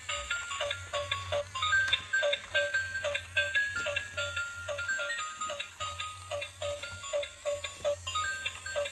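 Background music: a light plinking melody over a quick, even ticking beat.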